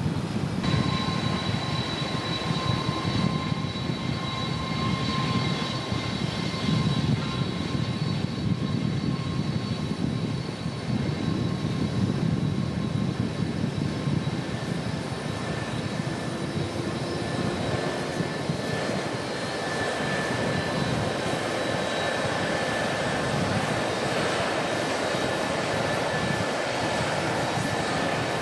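Jet airliner engines running at an airport: a steady noise with high whining tones whose pitch shifts about halfway through. A constant hum from a faulty microphone runs underneath.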